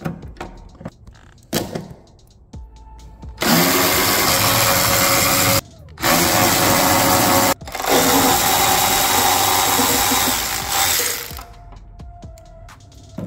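Cordless electric ratchet running in three bursts, the last the longest, backing out the door hinge bolts, with a few light clicks of handling before it starts.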